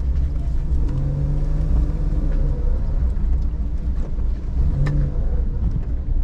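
Car running and rolling slowly, heard from inside the cabin: a steady low rumble, with the engine note rising and falling a little twice, and a few faint clicks.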